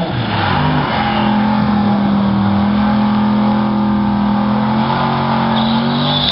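Corvette V8 revved hard and held at high rpm through a smoky burnout, rear tyres spinning. The revs settle in the first second to one steady high note that is held for about five seconds, then cut off sharply at the very end.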